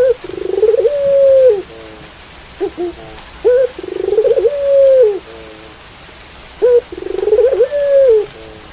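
Puter pelung, a domestic Barbary (ringneck) dove, cooing three times, about three seconds apart. Each coo is a short note, then a rolling trill, then a long held note that falls away at the end. Steady rain hisses underneath.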